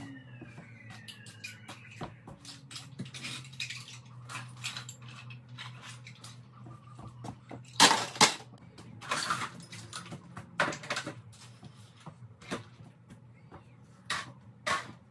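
Toys and other household objects clattering and knocking as a playroom is tidied up, loudest about eight seconds in, over a steady low hum.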